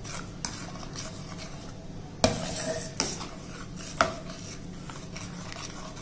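Steel ladle stirring thick black rice porridge in a stainless steel pot, scraping around the pot with a few sharp clinks against its side, the loudest about two seconds in and others about three and four seconds in.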